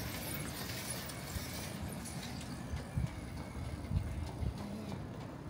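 Footsteps on a paved street, a few soft thuds over a steady hum of street noise.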